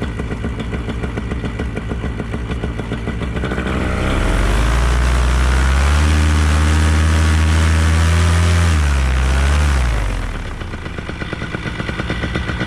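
Paramotor engine and propeller idling with a fast pulsing beat, then revved up about four seconds in, held at high power for several seconds, and throttled back down to idle near the end.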